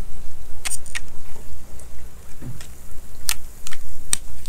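A handful of sharp plastic clicks and taps as shore power cord plugs are handled at a dock power pedestal, over a steady low rumble.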